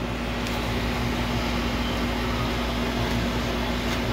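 Steady mechanical hum of a running kitchen appliance's fan, with one constant low tone and no change in level.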